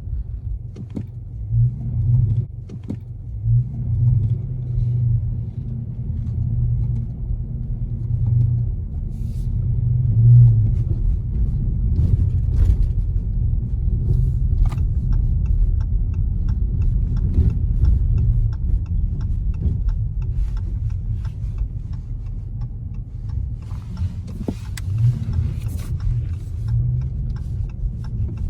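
Dodge Charger R/T's 5.7-litre Hemi V8 running, a steady low rumble with scattered light clicks and crackles over it.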